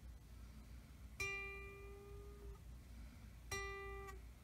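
Electric guitar's G string plucked twice at the 12th fret, the 12th-fret harmonic and the fretted note an octave above the open string, to check intonation. The first note rings about a second and a half; the second is stopped after about half a second. The fretted note plays sharp because the bridge saddle cannot be moved back far enough.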